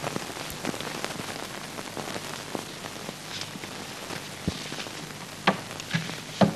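Steady hiss with scattered crackles from a worn old film soundtrack, then three sharper knocks near the end as a rotary telephone is set down and handled.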